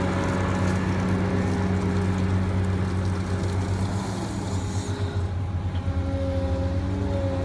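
Diesel engine of a CAT M316D wheeled excavator running steadily, with its note shifting slightly about halfway through and a thin high whine coming in near the end.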